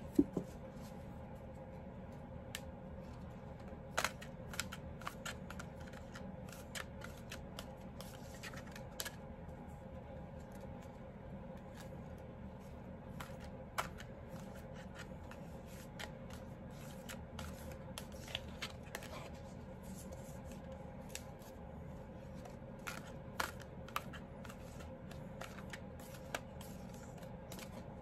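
A deck of oracle cards being shuffled by hand: irregular soft clicks and snaps of the cards over a faint steady hum.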